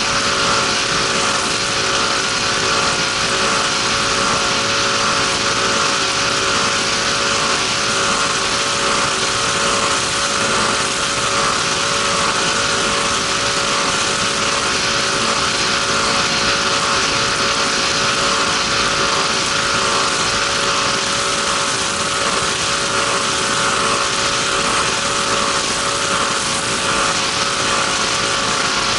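Race power boat's engine running at a steady high speed, its pitch holding even, over a constant rush of wind and water.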